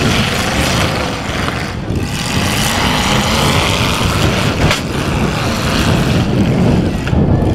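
Demolition derby cars' unmuffled engines running and revving loudly, with a single sharp bang about halfway through.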